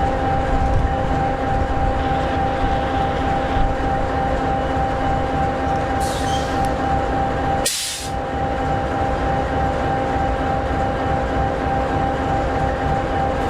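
EMD 16-710G3B sixteen-cylinder two-stroke diesel of an SD60E locomotive idling steadily, a deep rumble with a constant hum over it. A short hiss comes about six seconds in, and the rumble drops out for a moment near eight seconds.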